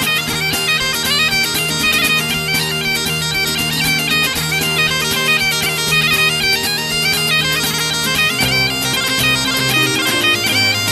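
Scottish bagpipe music: steady drones under a quick, ornamented melody. The low drone notes change about eight seconds in.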